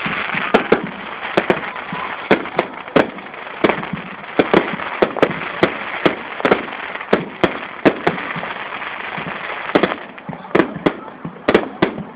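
Aerial fireworks display: shells bursting in many sharp, irregular bangs, often several a second, over a continuous rushing hiss that eases about ten seconds in.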